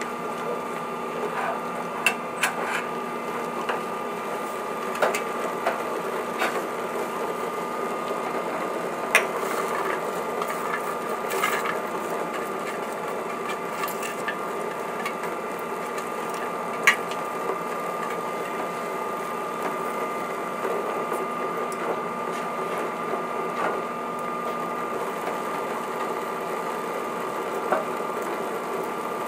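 Steady hum and whine of an induction hob heating a stainless steel pot of soup, with a few sharp clinks of utensils and a metal tray against the pot as ingredients are stirred and tipped in.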